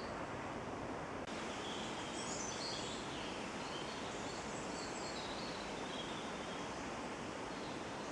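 Woodland ambience: a steady hiss with a few small birds giving short, high calls here and there.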